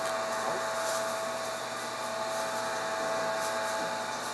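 Steady machine hum with a constant tone, and faint knife strokes as raw pork is sliced on a wooden cutting board.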